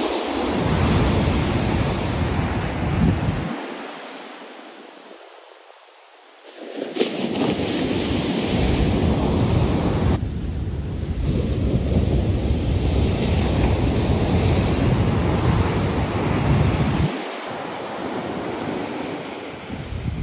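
Heavy surf from a hurricane swell breaking and washing up the beach, mixed with wind rumbling on the microphone. The noise eases off about four seconds in and builds back up a few seconds later.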